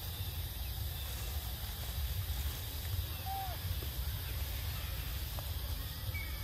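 Outdoor ambience: a steady low rumble with an even hiss, and one short chirp a little over three seconds in.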